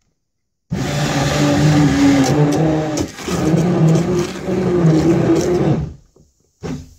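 Braun hand-held stick blender running submerged in a bowl of soaked egg-carton paper and water, its motor whirring and the blade churning and splashing the mix into papier-mâché pulp. It starts about a second in, dips briefly around the middle, stops about a second before the end, then gives one short blip.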